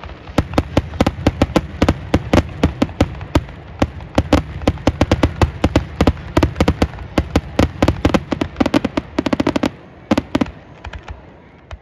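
Fireworks going off in quick succession: many sharp bangs and crackles, several a second, thinning out and stopping shortly before the end.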